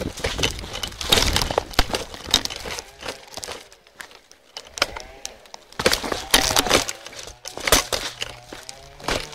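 Footsteps crunching over stony grass and a dirt path, with irregular crackles and clicks of clothing and gear rubbing close to the microphone.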